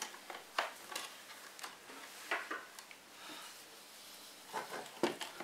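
Microfiber cloth rubbing and wiping inside a projector's plastic housing, with a few light clicks and taps of plastic parts, a little busier near the end.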